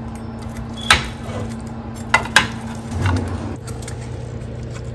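Metal pizza-cutter wheel cutting through a baked potato pizza in a glass baking dish, clicking sharply against the glass once about a second in and twice in quick succession a little after two seconds, then a soft scrape as a piece is lifted from the dish. A steady low hum runs underneath.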